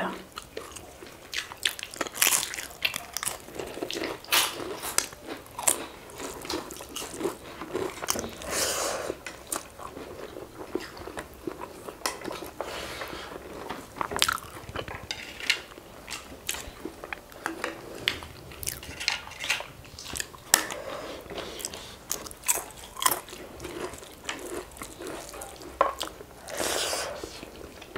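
Two people eating rice and pork curry by hand: irregular crisp crunches and chewing, from bites of papad and cucumber.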